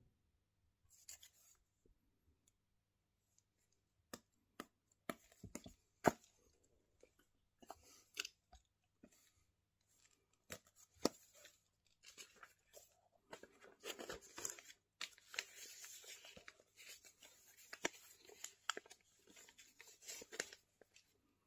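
Paper crinkling and rustling as a spiral-bound notepad is handled and a page turned, with scattered sharp clicks and crackles and a longer stretch of rustling in the second half.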